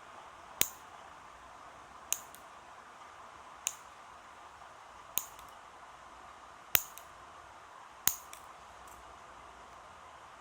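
Fingernails being clipped with a nail clipper: six sharp snaps about a second and a half apart, a few followed by a smaller click, over a steady background hiss.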